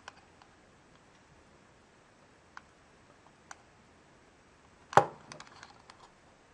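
A small candy box being handled and turned over in the hands: a few light clicks, then a sharp knock about five seconds in followed by a quick run of smaller clicks.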